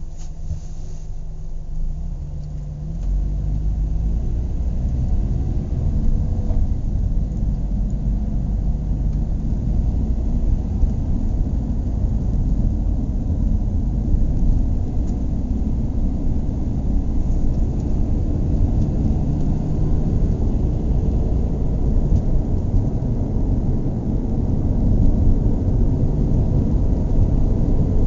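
Car engine running with a low rumble. It revs up about three seconds in, then runs on steadily at the higher level.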